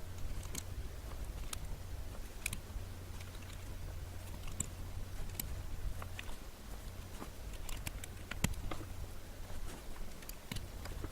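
Typing on a Clueboard mechanical keyboard with jailhoused Cherry MX Blue switches: irregular, fairly sparse keystrokes whose click jackets are spacered, so the switches' usual click is silenced. A steady low hum runs underneath.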